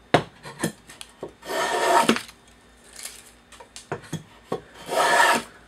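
Shoulder plane cutting the starting groove of a rabbet along the edge of a wooden board: two long rasping shaving strokes, one about a second and a half in and one near the end, with small knocks of the plane on the wood between them.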